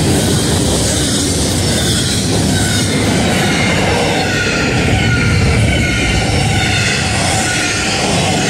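Double-stack intermodal freight train rolling past close by: steady rumble and clatter of the well cars' wheels on the rails, with faint wavering wheel squeal from about three seconds in.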